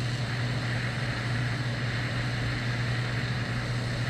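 Small handheld gas torch burning with a steady roar and hiss, heating the tip of an oil-hardening drill-rod part toward critical temperature before the quench.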